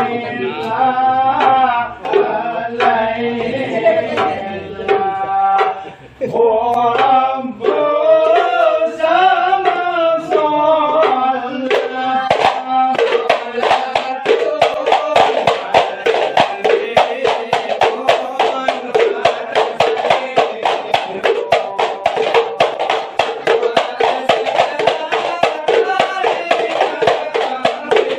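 A hadrah Ishari group of men singing a sholawat, mostly voices at first with a short break about six seconds in; about twelve seconds in, large hand-struck frame drums (terbang) come in with a fast, dense beat under the singing.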